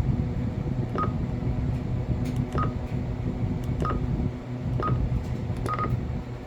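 Keypad beeps from a TYT TH-9000D Pro mobile radio as its buttons are pressed: five short beeps at one pitch, roughly a second apart, the last one doubled. A steady low hum runs underneath.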